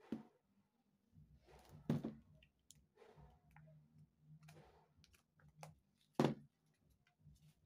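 Plastic food containers and a kitchen knife being handled and set down on a table: a few sharp clicks and knocks, the loudest about two seconds in and about six seconds in, with soft rustling in between.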